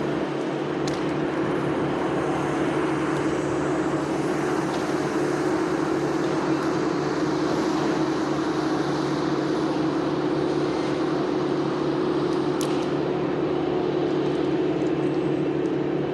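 An engine running steadily at a constant speed, with an even, unchanging drone throughout.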